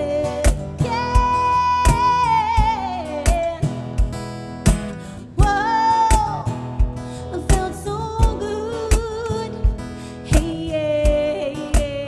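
Woman singing held, wavering notes over a strummed acoustic guitar, with a steady beat of hand strokes on a cajón.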